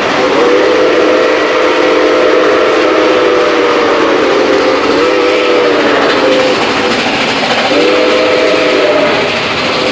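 Nickel Plate Road 765's steam whistle, a 2-8-4 Berkshire locomotive, blowing one long chord with a brief dip in pitch about five seconds in, then after a short gap a shorter blast near the end. Under it runs the steady noise of the moving train, heard from a passenger car's vestibule.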